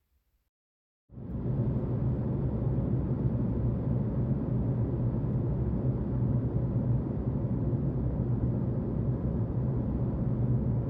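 Steady cabin noise of an Airbus A380 in flight, an even rumble starting about a second in.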